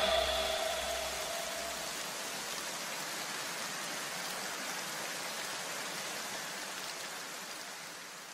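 Even, rain-like hiss of noise that slowly fades out as an electronic dance track ends, with the last held notes ringing faintly and dying away in the first two seconds.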